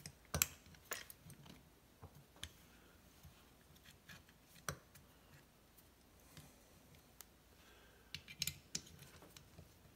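Small metal snowmobile brake parts clicking and tapping against each other as they are fitted together by hand: a few separate sharp clicks, then a quick cluster of them near the end.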